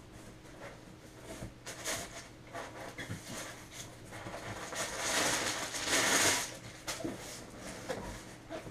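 Cardboard box and its packing being handled during unboxing: scattered light knocks and rustles, with a louder stretch of rustling about five seconds in that lasts a second and a half.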